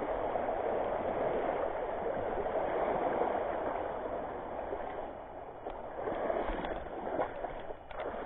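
Shallow seawater washing and gurgling over rocks, a steady rush that fades after about five seconds, with a few faint clicks near the end.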